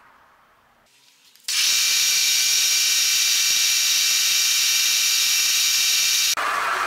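Milling machine spindle motor running at speed, spinning an edge finder: a loud, steady, high-pitched whir and hiss that comes on suddenly about a second and a half in and shifts in tone near the end.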